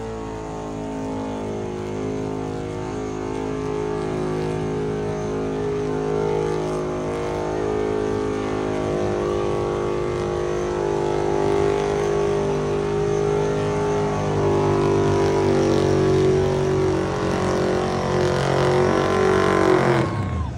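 Supercharged engine of a burnout pickup held at high, steady revs during a burnout, getting louder in the last few seconds and cutting off suddenly near the end.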